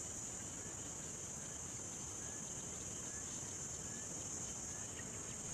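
Steady, high-pitched insect chorus, a continuous shrill drone, with a few faint short chirps now and then.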